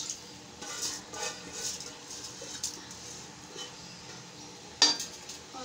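Faint clinks of a metal spoon against an aluminium cooking pot, with one sharp metal knock near the end.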